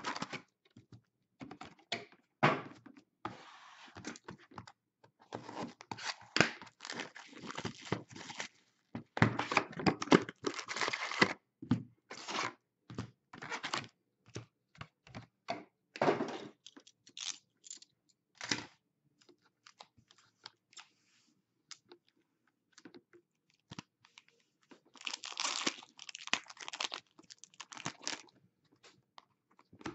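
Foil trading-card packs being torn open and their wrappers crinkled, with the cards and the cardboard box handled in between: stretches of ripping and crinkling lasting a few seconds each, separated by many short clicks and taps.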